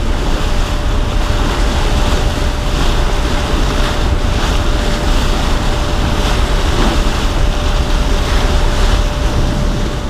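Bow wave rushing and splashing along the hull of a small passenger ship under way at sea, with heavy wind buffeting the microphone and a steady hum from the ship.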